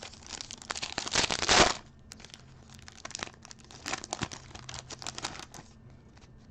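Trading-card pack wrapper crinkling and tearing open, loudest in the first second and a half, followed by lighter rustling and clicks as the cards are handled.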